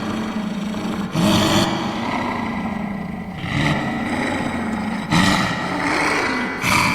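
Noisemaker sounded continuously as a steady pitched tone, with fresh louder blasts about a second in, around three and a half seconds, around five seconds and near the end.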